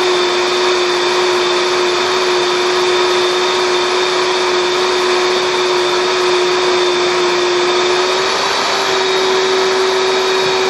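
Vitamix Professional 500 blender running steadily, whipping heavy cream into whipped cream: a constant motor whine over a rushing noise.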